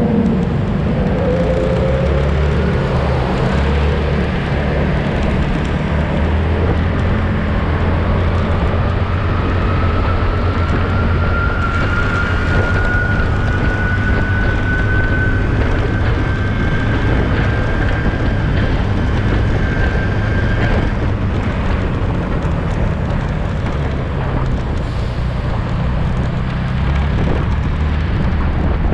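Motorcycle riding in traffic, recorded by a camera mounted on the bike: a steady low engine hum under a constant rush of wind and road noise. A thin high whine slowly rises in pitch through the middle, then fades out.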